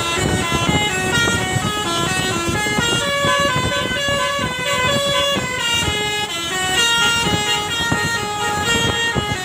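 Bus 'telolet basuri' multi-tone musical air horn playing a running melody, its notes stepping quickly up and down.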